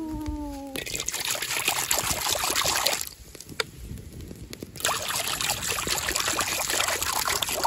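Water poured into a metal wok, splashing and trickling onto the pan's surface in two pours. There is a gap of about two seconds in the middle.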